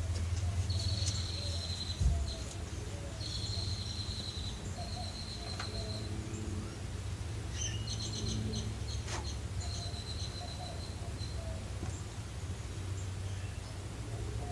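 Outdoor ambience: a steady low rumble with repeated high chirping trills, each a second or two long. A single thump about two seconds in, and a sharp click near the ninth second.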